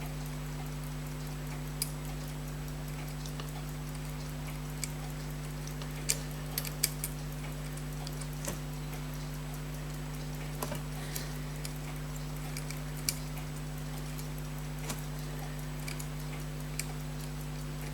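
Scattered, irregular light clicks and taps from small metal watch parts and tools being handled, over a steady low electrical hum.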